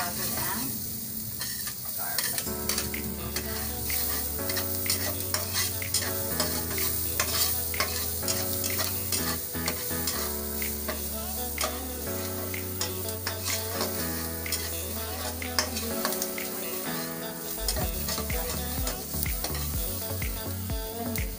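Diced onion sizzling in hot oil in a frying pan while a metal spatula stirs it, with many small clicks and scrapes of the spatula against the pan.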